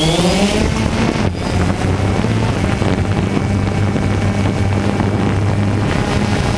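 DJI Phantom 2 quadcopter's four brushless motors and propellers: the pitch rises in the first half second as they finish spinning up, then holds as a steady drone through takeoff and climb. Propeller wash buffets the drone's own microphone.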